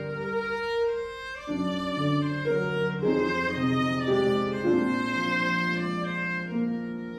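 Viola bowed in a slow melody of held notes, each changing to the next after about a second.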